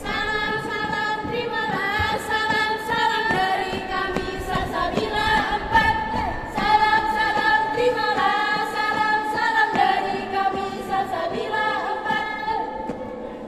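A group of girls singing a yel-yel cheer song together, holding notes that step from pitch to pitch.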